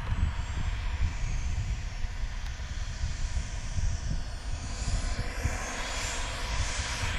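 Turbine engine of an RC F-16 model jet in flight: a high whine that grows louder and rises in pitch from about two-thirds of the way through as the jet comes closer. A gusty low rumble of wind on the microphone runs underneath.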